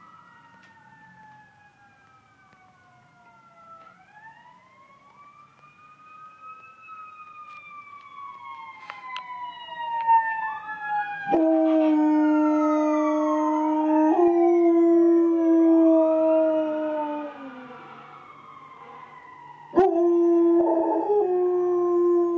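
German Shepherd dog howling along with passing emergency vehicle sirens. The sirens wail up and down throughout, faint at first and growing louder. About halfway in the dog joins with a long steady howl of about six seconds that trails off, then starts another long howl near the end.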